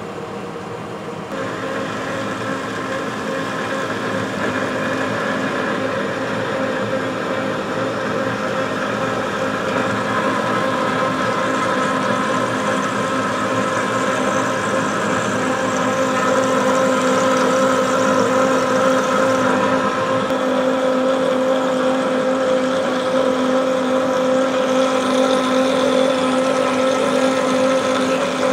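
DoALL vertical band saw running and cutting through a block of H13 tool steel with coolant: a steady machine hum and whine. It gets louder about a second in and keeps growing gradually as the cut goes on.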